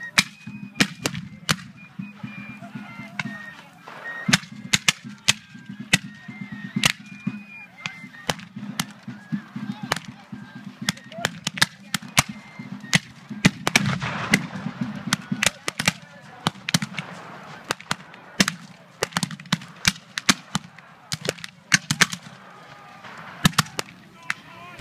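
Blank-firing black-powder muskets in a reenactment battle: scattered, irregular shots and ragged volleys, at times several a second, thickest around the middle.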